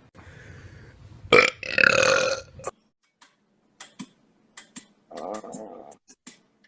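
A man burps loudly about a second in, for just over a second. A softer, shorter voiced sound follows later, with a few faint clicks.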